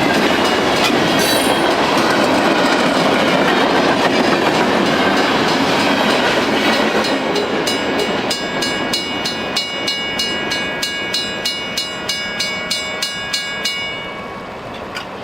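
Freight train rolling past at speed, the cars' wheels clattering over the rails, the noise easing as the train passes. From about eight seconds in a mechanical crossing bell rings clearly at about two strikes a second, stopping shortly before the end.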